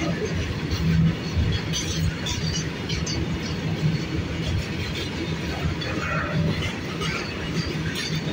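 Indian Railways freight wagons rolling steadily past: a continuous low rumble of wheels on rail with occasional faint clicks.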